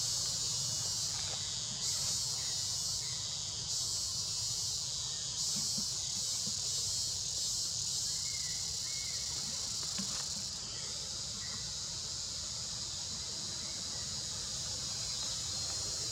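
Insects singing in a dense, high-pitched buzzing chorus that swells and falls back every second or two, then settles steadier and a little quieter after about ten seconds, over a low rumble.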